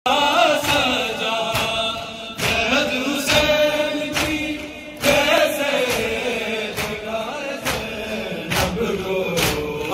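A man chanting a mournful noha, with a crowd of men beating their chests in unison in time with it, the slaps falling a little under once a second.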